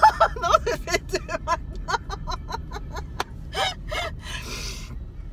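A woman laughing hard in strings of short, quick 'ha' pulses, then drawing a long gasping breath near the end. A low hum from the car runs underneath.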